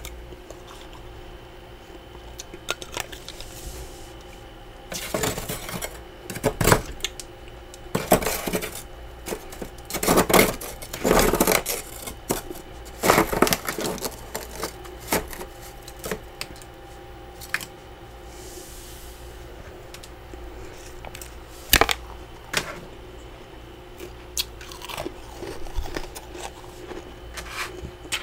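Freezer frost crunching as it is scraped loose from the walls of a frosted-up mini freezer and bitten into. It comes in irregular bursts, busiest from about five seconds to about sixteen seconds in, then thins to scattered clicks. A faint steady hum runs underneath.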